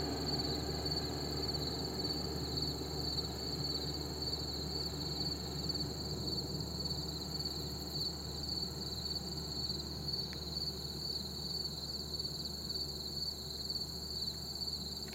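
Cessna 172's piston engine and propeller droning as the plane climbs away, growing slowly fainter as it recedes. A steady, high, wavering tone sits over it.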